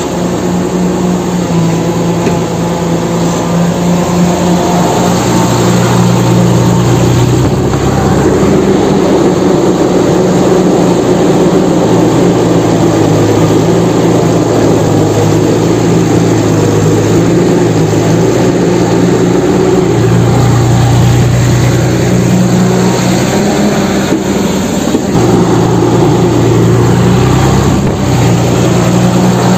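Truck engine running loudly and steadily, its hum stepping between a higher and a lower pitch every few seconds, with a rough rumbling noise over it.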